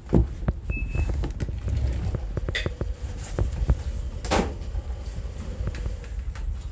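A German shepherd moving on a wooden floor: scattered light clicks and taps, over a low rumble of phone handling noise, with one short rushing burst about four seconds in.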